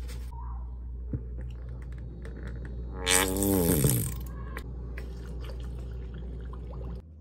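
Plastic honey-bear squeeze bottle being squeezed over a mug, letting out a loud squeak that falls in pitch for about a second, midway through. A steady low hum runs underneath.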